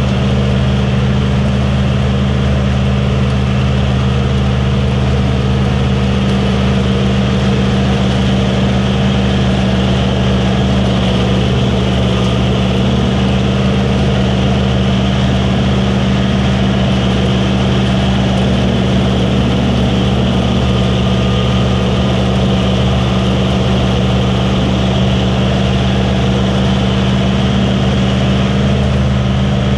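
Combine harvester running steadily at a constant working speed, with a deep, unchanging engine hum.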